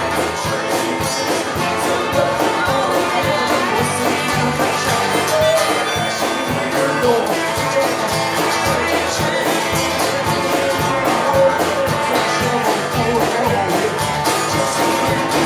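Live band playing a country-flavoured roots-rock song with strummed acoustic guitars and a woman singing lead into a microphone.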